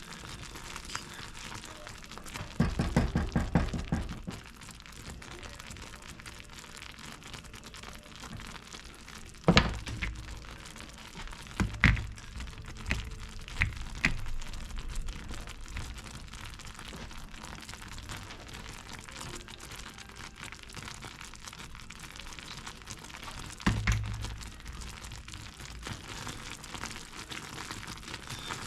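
Butter toffee boiling in a pan with a steady bubbling hiss. Near the start comes a quick run of rapid rattling strokes, and several sharp knocks follow, the loudest about a third of the way in, then more near the middle and near the end.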